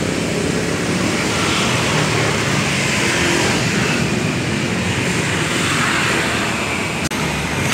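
Matsumoto MGP-40B portable water pump's 3.5 hp four-stroke single-cylinder engine (MGX 100) running steadily, with a brief dropout near the end.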